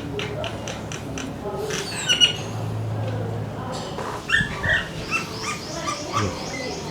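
A domestic cat giving several short, pitched meows and cries of protest while it is being groomed, after a run of light clicks.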